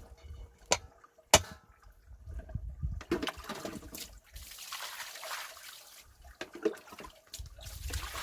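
Two sharp knocks, then water splashing and running for a few seconds, with more small knocks near the end.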